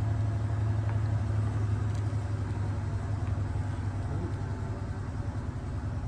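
A steady low mechanical hum of a running motor, even throughout, with a few faint small clicks over it.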